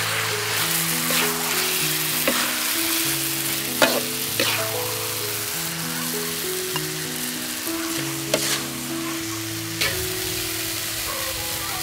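Squid and tomato sauce sizzling in a metal wok, with a spatula scraping and knocking against the pan several times, the two loudest knocks about four and eight seconds in. Slow background music with held low notes plays underneath.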